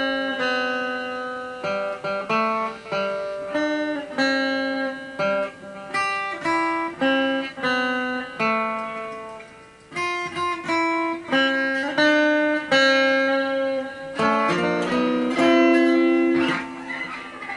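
Solo guitar playing a birthday song, a melody of single plucked notes that each ring and fade, with a short break in the tune about ten seconds in.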